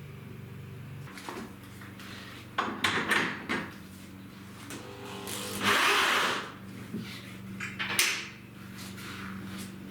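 Workshop handling noises: a few knocks and clatters, then a longer scraping rustle about halfway through, and a sharp click near the end, over a steady low hum.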